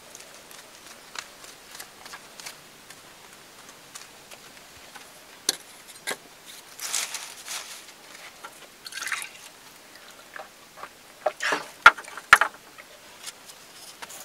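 Small handling sounds of bamboo: scattered light clicks and short rustles, with two sharp knocks near the end, as bamboo cups and leafy branches are set down on a bamboo slat bed.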